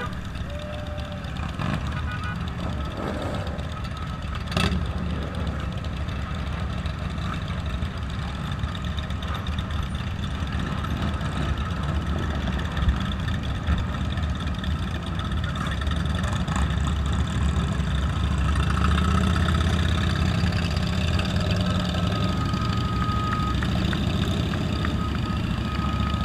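Motorcycle engines running at low speed in a large pack, including the rider's own 2015 Triumph Bonneville T100 air-cooled parallel twin. The engines get louder about two-thirds of the way through, and a short horn note sounds near the end.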